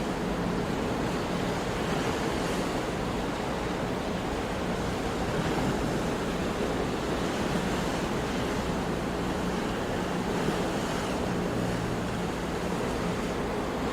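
Sea waves and surf, a steady rush of water.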